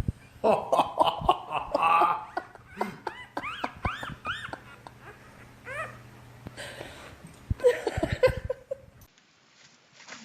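A dog giving a run of short rising-and-falling vocal calls while people laugh.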